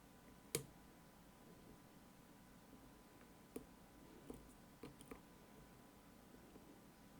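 Faint, sparse clicks of lock picks and a tension wrench working inside an Assa Guideline lock: one sharper click about half a second in, then a small cluster of four more a few seconds later.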